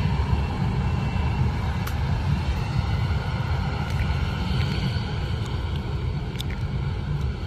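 Boeing 737 jet engines running at taxi power as the airliner rolls along the runway: a steady low rumble with a faint whine over it.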